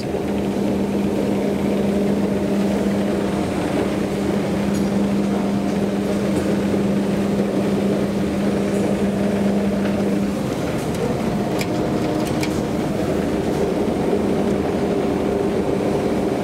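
Traction elevator car running in its shaft: a steady mechanical hum with a constant drone that cuts out about ten seconds in, after which a different, lighter hum carries on. A few faint clicks come a couple of seconds after the change.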